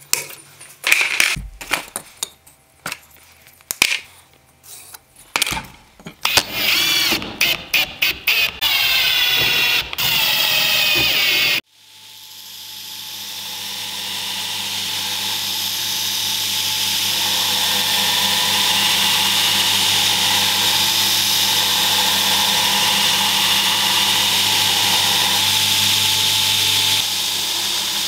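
Irregular clicks and knocks of metal being handled. About twelve seconds in these stop and an electric belt grinder's motor starts, spinning up over a few seconds to a steady run with its sanding belt turning.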